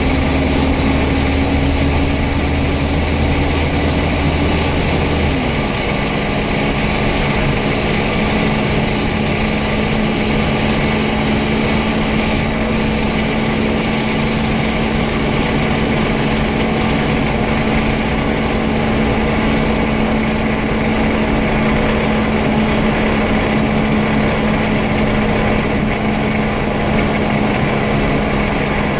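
Scania N94UD double-decker bus engine idling, heard from inside the lower deck, with a steady whine over it. About five seconds in, a low hum stops and the whine drops slightly in pitch, then holds steady.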